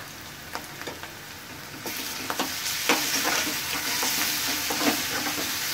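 Chopped onion, capsicum and ginger-garlic paste sizzling in hot oil in a kadhai, stirred with a spoon that clicks and scrapes against the metal pan. The sizzle gets louder about two seconds in, when the stirring starts.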